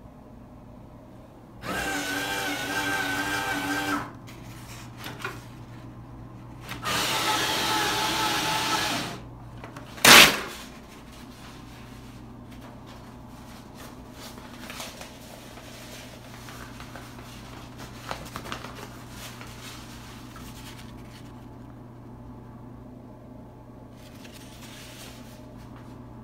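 Georgia-Pacific enMotion automatic paper towel dispenser's motor running twice, each time for about two seconds with a steady pitched hum, as it feeds out a towel. A short, sharp, loud noise follows about ten seconds in.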